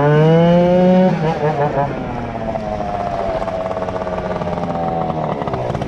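Malaguti Phantom F12 two-stroke scooter engine under way, buzzing at high revs at first, the revs dropping and warbling about a second in as the throttle eases, then a steady rise in pitch as it pulls away again, easing off near the end.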